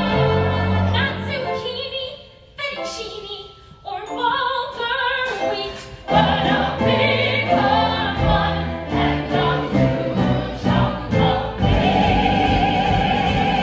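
A musical-theatre number: voices singing over band accompaniment, thinning out into a quieter passage from about two and a half to six seconds in before the full sound returns.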